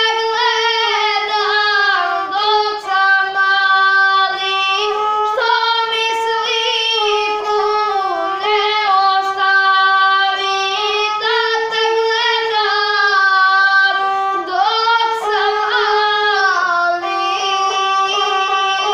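A boy singing a South Slavic epic song in a high, strained voice, accompanying himself on a bowed gusle. The singing is almost continuous, mostly long held notes in a narrow range, broken up by quick ornamental turns.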